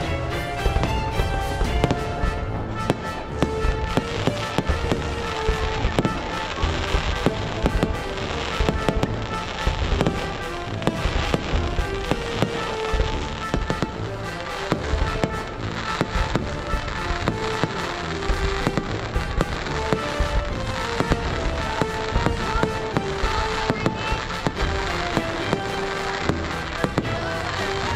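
Fireworks going off in a dense run of bangs, several a second without a break, with melodic music playing along.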